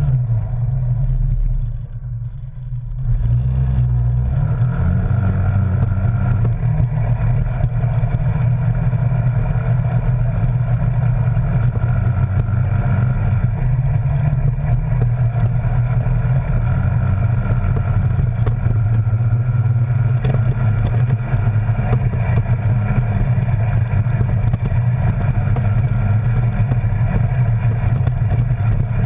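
Arctic Cat Wildcat Sport side-by-side's engine running as it drives along the trail, easing off briefly about two seconds in and then picking back up to a steady drone.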